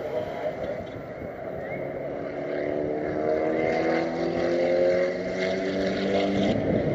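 2009 Honda Civic Si's 2.0-litre four-cylinder engine accelerating, its pitch rising steadily for several seconds, then falling abruptly near the end.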